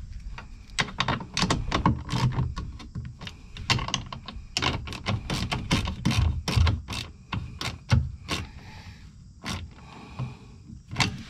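Hand ratchet wrench clicking in quick, irregular runs while tightening the bolts of a replacement RV waste-tank slide valve; the clicks thin out over the last few seconds.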